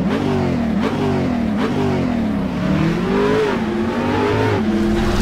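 Car engine revving, its pitch rising and falling several times.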